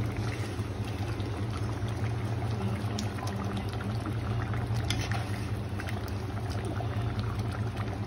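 Thick curry bubbling at a simmer in a clay pot, with scattered small pops and a steady low hum underneath.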